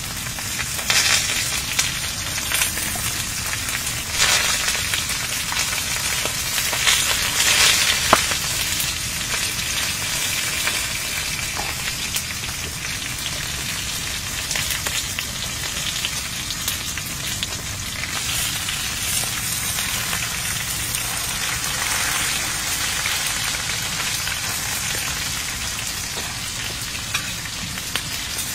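Close-miked eating sounds: crunching, chewing and chopstick clicks over a steady crackling hiss, with the loudest bites about one, four and seven to eight seconds in.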